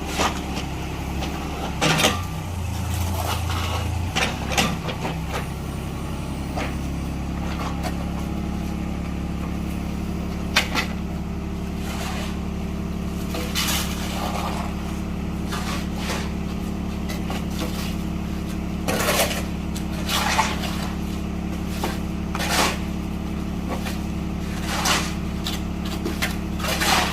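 Engine-driven concrete mixer running steadily during a concrete pour, with sharp clanks and knocks at irregular intervals.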